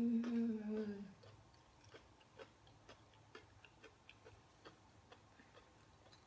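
A short closed-mouth "mmm" hum, falling slightly in pitch, through about the first second, then quiet chewing of a soft fried cheese-filled snack, heard as faint mouth clicks about once or twice a second.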